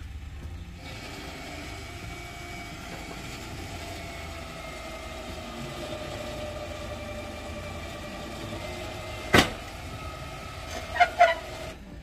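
A recovery truck's engine running, with a steady whine that sags slowly in pitch. There is a sharp bang about nine seconds in, and two short loud sounds a quarter-second apart near the end.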